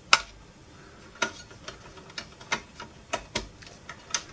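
Light, irregular clicks and taps, about eight in four seconds, the loudest right at the start. They come from a screwdriver working at the power switch in the Pioneer SA-620 amplifier's sheet-metal front chassis to free the switch's rubber cap.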